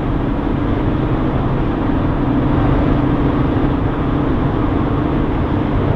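Steady road and engine noise of a moving car, heard inside the cabin, with a low steady drone.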